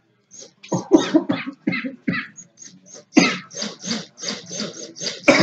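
A person's short breathy vocal bursts, a few at first, then a quick run of them, several a second, from about halfway in.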